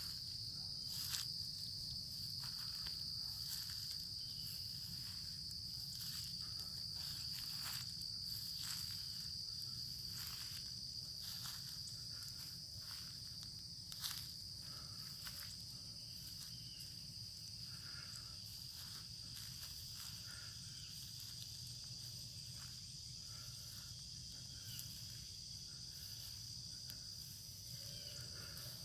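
Insects trilling in one steady high-pitched drone, with scattered light clicks and rustles, the sharpest about halfway through, over a low rumble.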